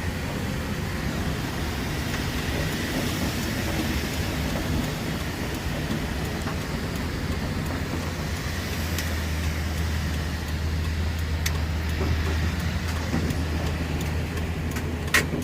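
A car driving along a rain-flooded road: steady engine and tyre noise with a hiss of water, the low rumble growing stronger about halfway through. A few sharp clicks, the loudest near the end.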